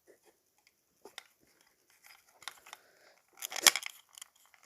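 Plastic Lego bricks being handled: scattered small clicks and rattles, with a louder cluster of clicks late on.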